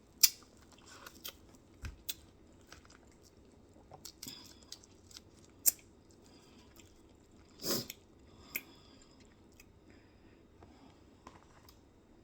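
A person chewing and biting food, with sharp crunchy clicks scattered throughout and one longer, louder crunch a bit past the middle.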